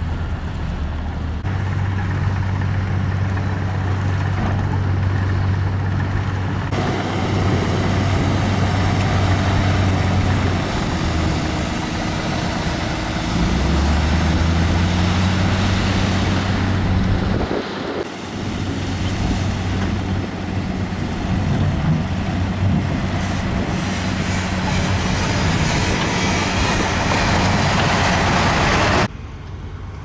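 Heavy diesel earthmoving machinery running under load: a deep engine drone that shifts in pitch as it works, with a harsh rushing noise over it. The sound changes abruptly a couple of times and drops sharply in level near the end.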